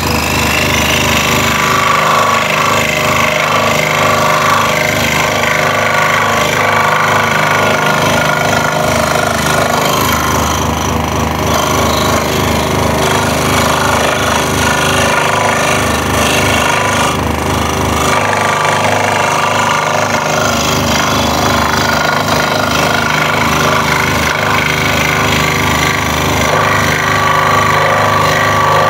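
Scroll saw running steadily, its blade stroking rapidly up and down as it cuts tight curves through a wooden board.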